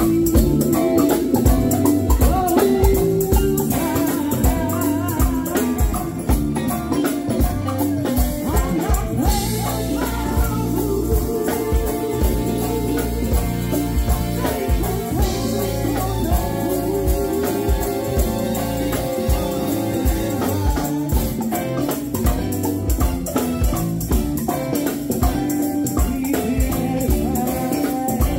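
Live go-go band playing a steady beat on drum kit and percussion, with electric guitar and bass, and singers on microphones.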